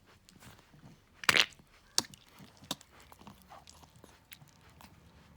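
A pet coughing: one short, harsh cough about a second in, followed by a couple of smaller clicking sounds.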